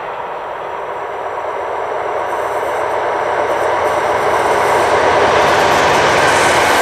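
Spitzke V 100 diesel-hydraulic locomotive approaching with a train of track-maintenance wagons. The engine and the wheels on the rails grow steadily louder as it nears.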